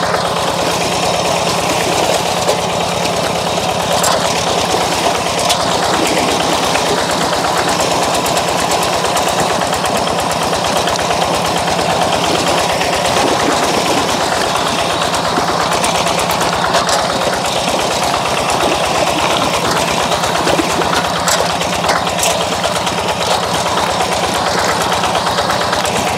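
Two-wheel hand tractor's single-cylinder diesel engine running steadily under load as the cage-wheeled tractor works through deep flooded mud.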